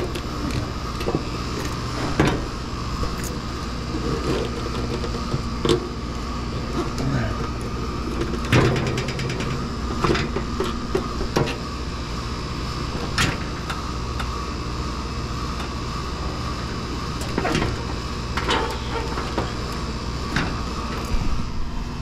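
Scattered metallic clanks and knocks from hand work on an air-conditioner condenser unit, over a steady machine hum.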